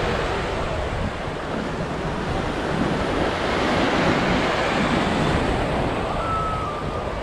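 Small ocean waves breaking at the shoreline and washing up the sand, a steady surf wash that swells about halfway through as a wave runs up.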